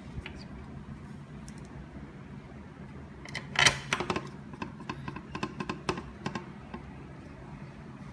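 Small metal clicks and taps of a hex screwdriver driving the screws back into a 3D printer's bottom cover plate, with a louder clatter about three and a half seconds in and a run of lighter clicks over the next few seconds.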